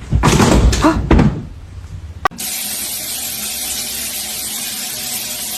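Rustling and knocking for about two seconds, a single sharp click, then a steady hiss.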